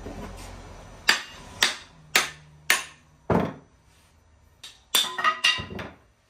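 Axe head being trial-fitted on a wooden handle, driven on with about five sharp knocks half a second apart. About five seconds in comes a quick run of knocks with a short metallic ring as the head is knocked back off, to see where the eye leaves marks on the wood.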